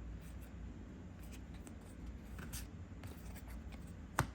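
Trading cards being handled and slid against each other, a soft, intermittent rustle, with one sharp click near the end.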